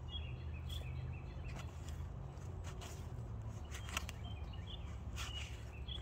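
Garden ambience: small birds chirping, with scattered short scrapes and rustles of hand digging in soil with a hand trowel, over a steady low rumble.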